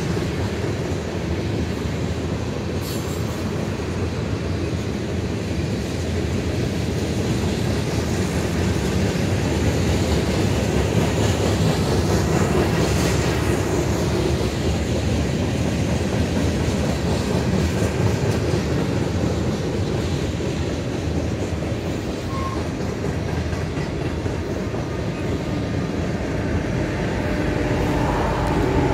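Freight cars of a long freight train rolling past, a steady rumble of steel wheels on the rails. Near the end the first mid-train distributed-power diesel locomotive, an EMD SD70ACE, arrives and its engine note comes in.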